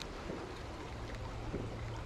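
Small mountain creek running steadily, with a low rumble of wind on the microphone and a few faint ticks.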